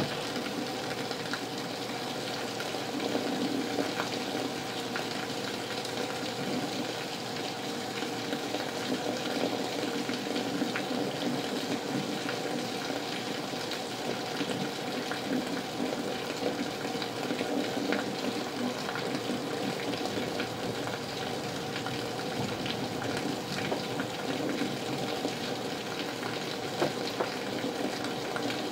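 Heavy rain pouring down steadily, a dense hiss with many small drop ticks and splashes.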